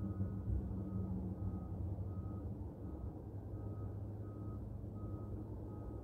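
A vehicle's backup alarm beeps steadily, about three short beeps every two seconds, over a low engine rumble. The beeping stops near the end.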